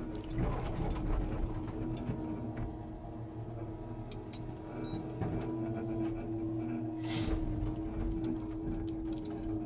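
Scania timber truck's engine running steadily, with a short burst of air hiss about seven seconds in.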